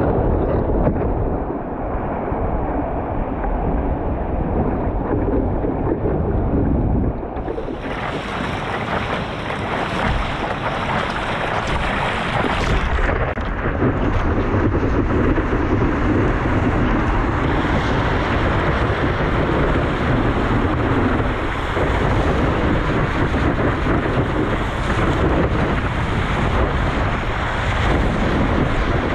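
Wind buffeting a board-mounted camera's microphone over water rushing and splashing around a stand-up paddleboard riding a small wave.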